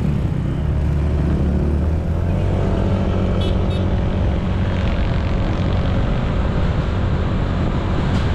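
Honda ADV160 scooter's single-cylinder engine running as the bike rides along, picking up speed about two seconds in, with wind and road noise.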